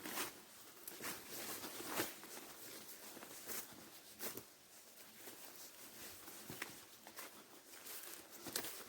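Faint footsteps and rustling as a person pushes on foot through overgrown forest undergrowth, irregular steps roughly one a second.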